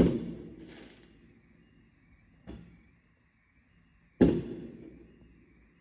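Fireworks or firecrackers going off in the neighbourhood: a loud bang at the start, a smaller one just after, a weaker one midway and another loud bang about four seconds in, each echoing off for about a second.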